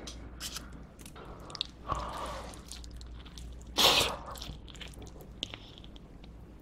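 A bite into a slice of pepperoni cheese pizza about four seconds in, followed by quiet chewing and small mouth clicks. Softer handling noises come before it as the slice is picked up.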